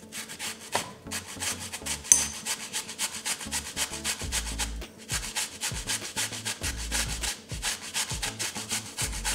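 Zucchini being grated coarsely on a hand grater: a quick, even run of rasping strokes.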